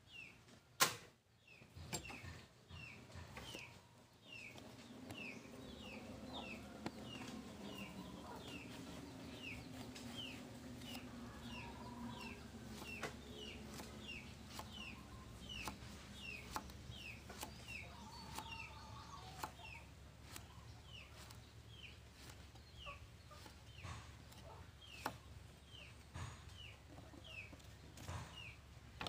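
Knife blade knocking on a wooden chopping board as vegetables are sliced, in sharp separate strokes, over a short high falling chirp that repeats about one and a half times a second, with chickens clucking in the background.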